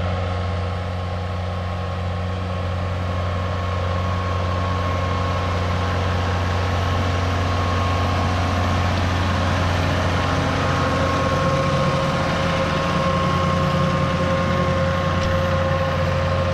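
Farm tractor engine running steadily under load while it pulls a cultivator across a field, growing slowly louder as the tractor comes closer.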